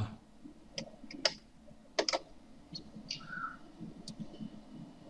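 A handful of sharp, irregularly spaced clicks from a computer mouse and keyboard as an AutoCAD drawing is edited.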